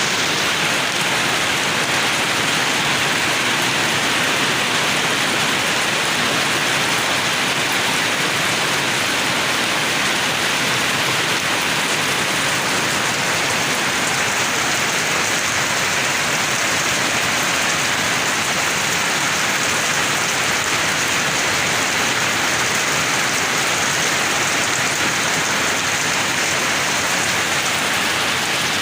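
Steady heavy rain falling and pattering on surfaces, a dense even hiss.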